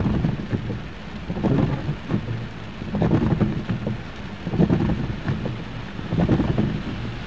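Heavy rain with strong wind buffeting the microphone in loud low rumbling gusts about every second and a half.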